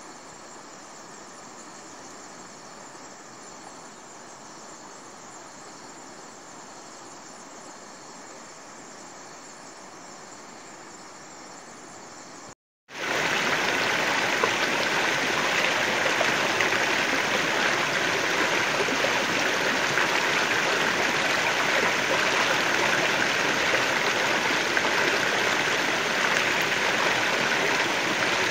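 A fainter steady rushing, then a brief dropout about halfway through, followed by the much louder, steady rush of flowing stream water.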